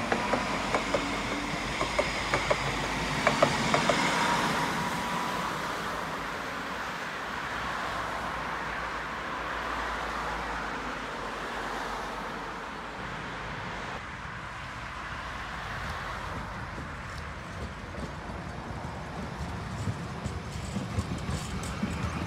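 Dresden tram running on its rails. A whine rises in pitch over the first few seconds, with a run of sharp clicks, then it settles into a steady rolling rumble. More clicks come in near the end.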